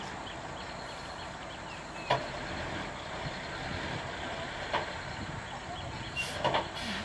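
Stopped bus's diesel engine idling steadily, with a few short sharp sounds on top: one about two seconds in, one near five seconds and a couple near the end.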